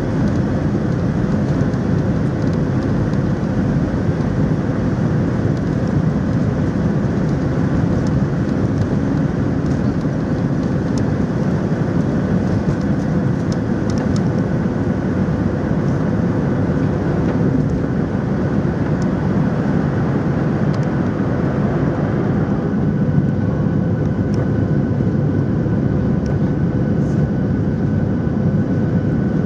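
Boeing 737-700's CFM56-7B turbofan engines at takeoff thrust, heard from inside the cabin over the wing: a loud, steady roar with a steady hum under it through the takeoff roll and lift-off. About three-quarters of the way in, a thin higher whine joins the roar.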